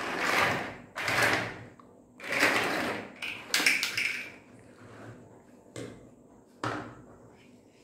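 Hard plastic toy building blocks clattering in several short bursts as they are rummaged through and handled. Near the end come two sharper clicks as pieces are pressed together.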